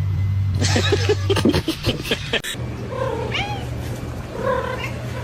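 A cat meowing: two short meows, about three seconds in and again near four and a half seconds, after a rapid run of clicks and knocks in the first couple of seconds.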